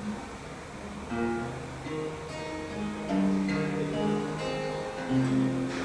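Music: an acoustic guitar playing a run of single plucked notes, each held briefly before the next.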